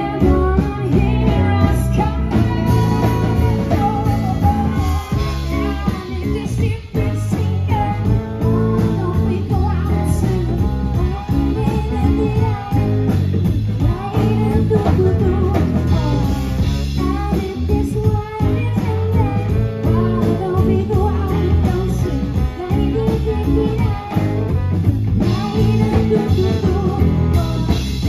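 Live band playing amplified rock-and-roll: electric guitar, electric bass, drum kit, saxophone and trombone, with a woman singing.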